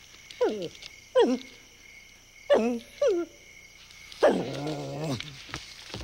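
A dog character barking: four short yips that fall in pitch, then one longer drawn-out call about four seconds in. Steady chirring of crickets runs underneath.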